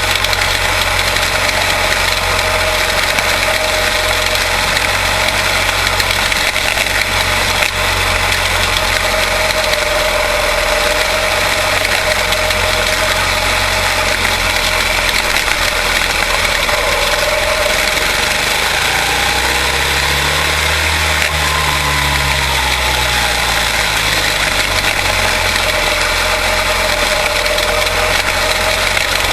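Quarter midget race cars with Briggs & Stratton Animal single-cylinder engines running laps in a steady, continuous drone, the engine pitch wavering up and down as the cars go around. About twenty seconds in, a car passes close with a rise and fall in pitch.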